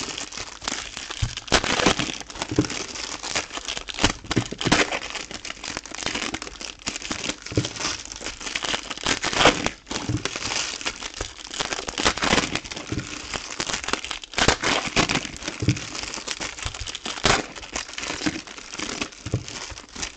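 Silver foil wrappers of Topps Chrome trading-card packs crinkling and crackling as they are handled and torn open by hand, a steady run of irregular crackles.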